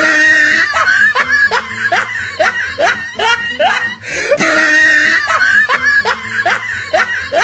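A man's laughter sound effect: a high opening cry, then a run of short rising 'ha' bursts, about three a second. The same laugh clip plays again about four seconds in.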